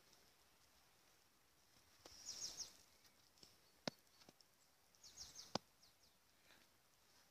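Mostly near silence, broken by faint crunching footsteps in snow, heard as two short clusters of quick high crackles, and two sharp clicks.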